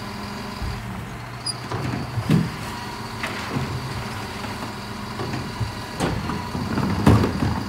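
Mercedes-Benz Econic refuse lorry running steadily while its Terberg electric OmnIDEL bin lifters raise two wheelie bins, tip them into the rear hopper and lower them again. There is a clunk about two seconds in and more knocks near the end as the bins are tipped and come back down.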